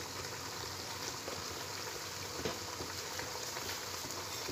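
Meat cooking in oil in a steel pot, with a steady low sizzle and a few faint crackles.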